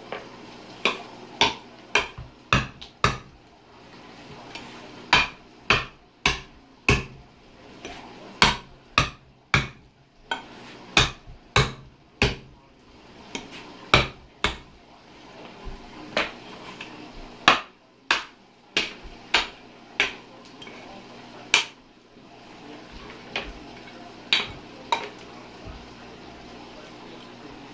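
Meat cleaver chopping into a pig's head on a cutting board to cut the meat away from the bones: dozens of sharp chops, often several in quick succession, with short pauses between runs.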